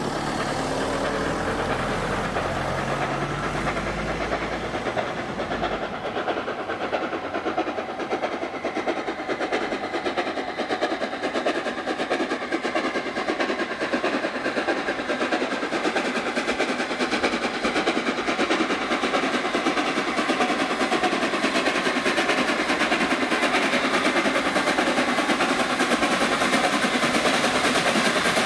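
Train hauled by the steam locomotive Flying Scotsman running along the line: a steady rattle and clatter of wheels on rail, growing slightly louder toward the end. A low rumble underneath fades out about five seconds in.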